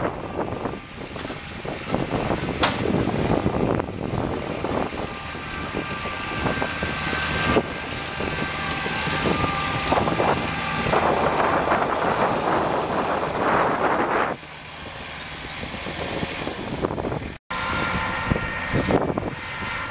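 Kubota 2710HSD compact tractor's four-cylinder diesel engine running as it drives over rough dirt, with a steady high whine for several seconds midway.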